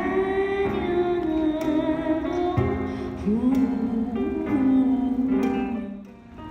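Background music: a soft melody with singing over plucked guitar, dipping briefly in loudness near the end.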